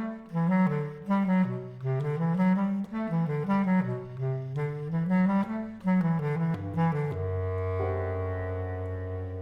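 Bass clarinet and piano playing a jazz tune: a bouncing phrase of short notes, then a long held low note about seven seconds in.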